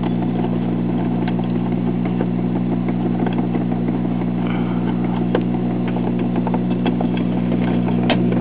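Steady electrical hum from the 1947 Admiral portable phonograph's three-tube amplifier through its speaker: a ground-related hum fault. Scattered light clicks run through it.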